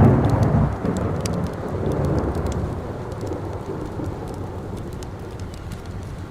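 A thunder rumble breaks in suddenly, loudest in the first second, then rolls and fades over the next few seconds over steady rain. Sharp crackles from a wood fire come through now and then.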